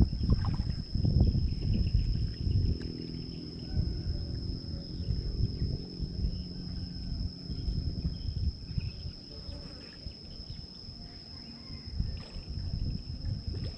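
A steady high-pitched insect trill over wind rumbling on the microphone. A faint low hum comes in a few seconds in and fades away a little past halfway.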